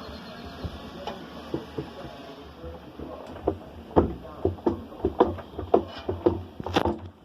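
Washing machine drum being moved by hand in a check of its bearings, knocking repeatedly; the knocks are sparse at first and come two to three a second from about halfway in.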